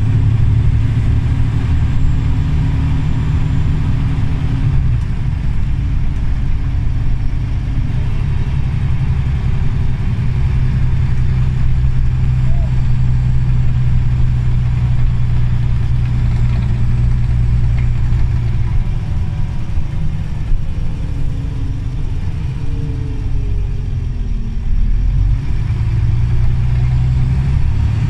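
Scania OmniCity CN94UA articulated city bus on the move, heard from inside the cabin: a steady low engine drone that changes pitch several times as the bus pulls away and eases off. In the second half a whine glides up and down.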